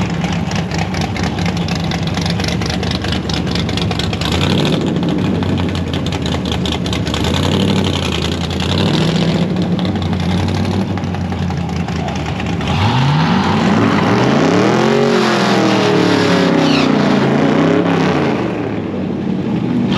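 Mopar drag cars' V8 engines running at a steady, lumpy idle. About thirteen seconds in they launch hard, and the engine pitch climbs steeply, drops back at each gear change and climbs again before fading.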